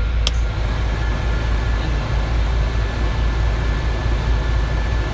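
Isuzu truck's diesel engine idling, heard from inside the cab, with a sharp click about a quarter second in as the heater fan knob is turned to its lowest speed. A thin steady whine then sets in and holds: the newly fitted blower fan running on speed 1.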